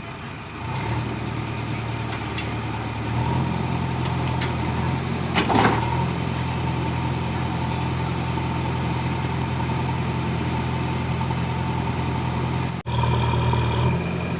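Diesel engine of a JCB 3DX backhoe loader running and working, its note stepping up in level twice early on as it takes load. One sharp clatter about halfway, and a brief break in the sound near the end.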